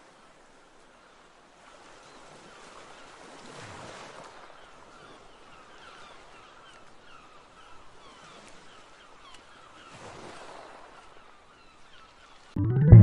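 Ocean waves washing in slow swells, with faint short chirping calls in between. Music starts abruptly near the end.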